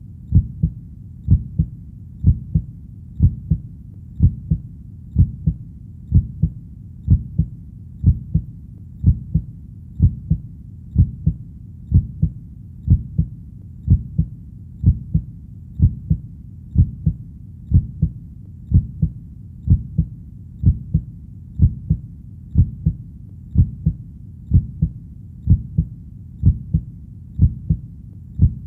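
Heartbeat at a slow, steady pace, about one beat a second, each beat a low double thump (lub-dub).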